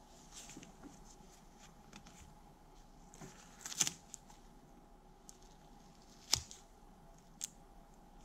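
Masking tape being pulled off the roll, torn and pressed around a wooden crank handle by gloved hands: faint rustling with a few short, sharp tearing crackles, the loudest about halfway through and a second one a couple of seconds later, over a low steady room hum.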